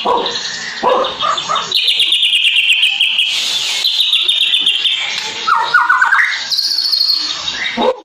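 White-rumped shama singing: long runs of fast, rapidly repeated notes, with a lower phrase and then a higher one near the end.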